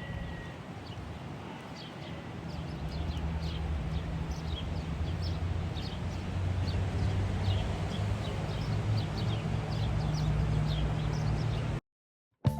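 Outdoor ambience: scattered short bird chirps over a steady low rumble that builds a couple of seconds in, then cuts off suddenly near the end.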